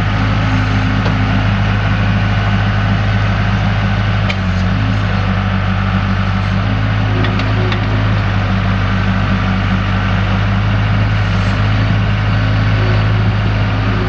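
Diesel engine of a 2002 Case 40XT skid steer, a Case 4-390 3.9 L four-cylinder, running steadily, with a brief dip in its note about four seconds in.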